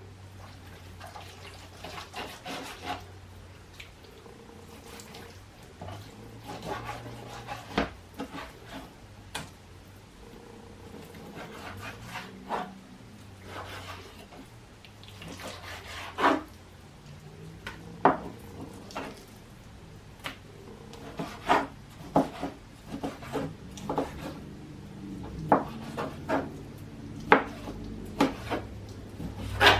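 Scattered light knocks, taps and scrapes of food being handled and cut on a cutting board, with dishes and utensils clinking. The knocks come more often in the second half, over a faint steady low hum.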